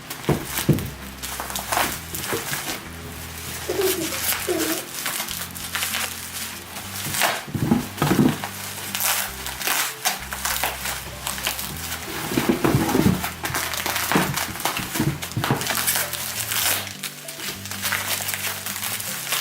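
Packing material rustling and crinkling as a wrapped ceramic plate is unwrapped by hand, in many irregular crackles, over quiet background music.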